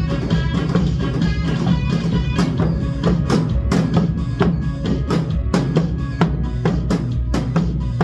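Janggu drums struck in a steady beat over an instrumental trot music track, with sharp strikes several times a second.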